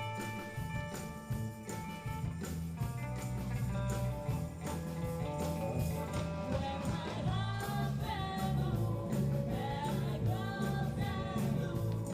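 Live band playing a song: a steady bass line under held guitar notes, with a singer's voice coming in about halfway.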